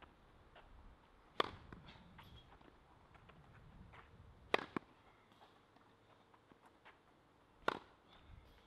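Tennis ball struck by a racket in a rally: three sharp pops about three seconds apart, the middle one followed at once by a second, lighter knock.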